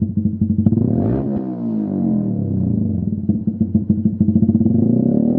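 Honda CBF125's single-cylinder four-stroke engine idling through a Lextek CP1 aftermarket silencer, its firing pulses clearly separate. There is a quick blip of the throttle about a second in, and the revs start to climb again near the end.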